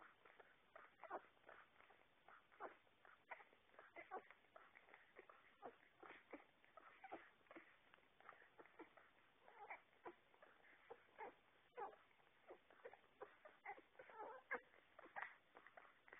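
Puppies suckling at their mother's teats: faint, irregular short squeaks and suckling noises, several a second.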